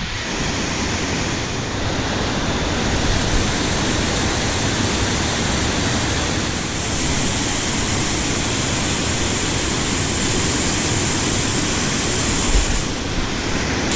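Rushing water of a mountain stream, a loud steady noise without pause.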